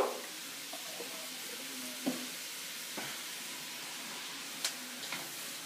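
Onion, shredded beef and chili seeds sizzling in hot oil in a pan while being stirred, an even hiss with a few light knocks of the utensil against the pan.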